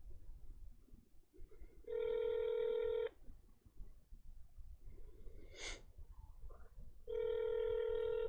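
Telephone ringing tone heard through a phone's speakerphone as the held call is put through: two rings, each a little over a second long and about five seconds apart. A short knock sounds between them.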